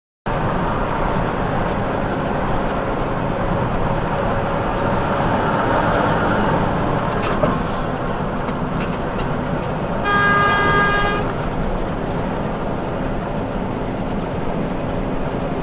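Steady traffic and road noise of moving vehicles, with a horn honking once for about a second about ten seconds in.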